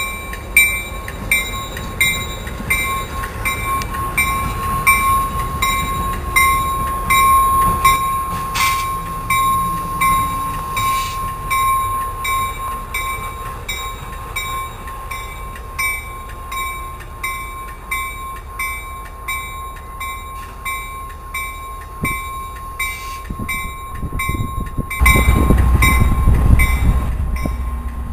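EMD F40PH-2 diesel locomotives running light, a steady low engine rumble with a steady high tone and regular faint ticking; the rumble turns much louder about 25 seconds in as a locomotive moves close.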